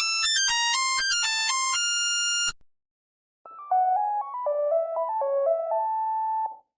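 Nokia 1100 monophonic ringtones: a fast melody of buzzy single beeps that cuts off about two and a half seconds in, then after a short pause a second, lower and softer-toned melody lasting about three seconds.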